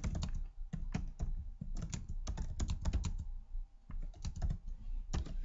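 Typing on a computer keyboard: a quick, irregular run of key clicks with a short pause a little past halfway.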